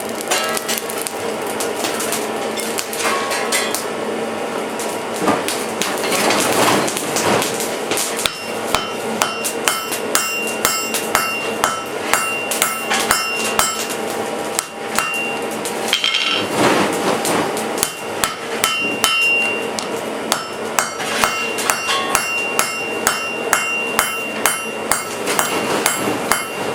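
Hand hammer forging steel on an anvil, with a steady run of blows about one to two a second and the anvil ringing after each strike.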